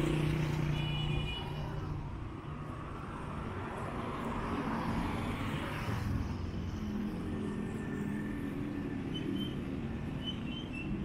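Street traffic with small motorcycle engines passing, one loudest as it goes by close at the start and fading over the next couple of seconds; another engine passes later.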